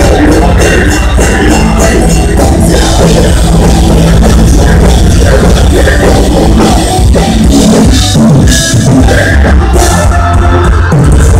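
Melodic death metal band playing live: heavy electric guitars and a fast drum kit, very loud.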